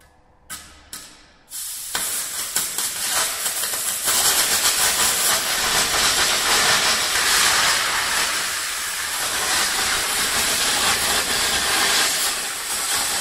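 Broco BR-22 Plus exothermic cutting torch: two short bursts, then the rod lights about a second and a half in and burns with a loud, steady hiss as it cuts, growing louder about four seconds in.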